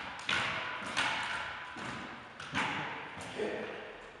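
Jumping stilts landing on a hard gym floor: several sharp thuds at uneven spacing, each followed by a short echo from the hall.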